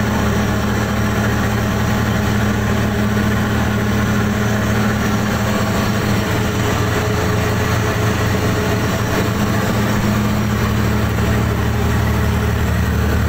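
Fishing boat's engine running steadily at a constant speed, a loud, even low hum with no change in pitch.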